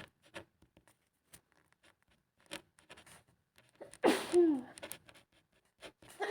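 A woman sneezing with a cold: a single loud sneeze about four seconds in, a sharp breathy burst followed by a falling voiced 'choo'. Before it there are only faint scattered ticks and scratches. A second sneeze begins right at the end.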